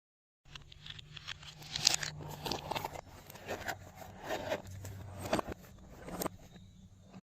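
Glossy slime being squished and stretched by hand, with irregular sticky crackling, clicking and popping and several louder squishy swells. It starts about half a second in and cuts off abruptly near the end.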